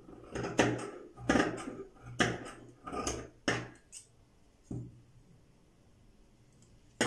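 Scissors snipping through velvet fabric: about eight short cuts over the first five seconds.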